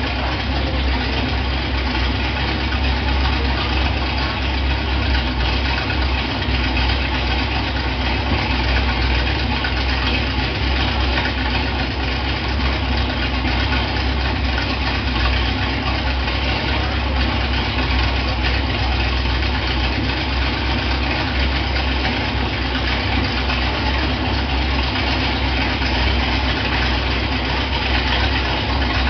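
Dodge V8 engine idling steadily with a deep, even rumble and no revving.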